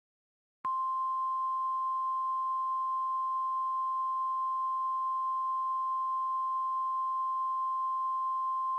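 Emergency Alert System attention signal: a single steady, unwavering tone that starts about half a second in and holds without a break. It is the alert tone that comes before the spoken emergency message.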